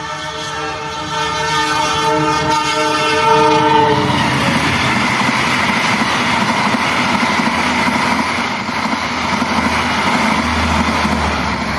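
Train horn sounding one long steady blast that stops about four seconds in, followed by the train passing close at speed, a loud steady rush of wheels on rail.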